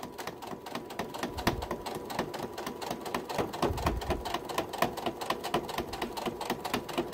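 Domestic electric sewing machine running steadily, stitching a seam through layers of quilt fabric: a fast, even rhythm of needle strokes.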